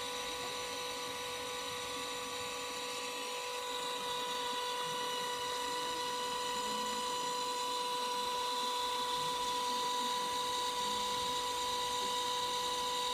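Electric potter's wheel motor running at a constant speed: a steady whine of several pitches held together, growing slightly louder about four seconds in.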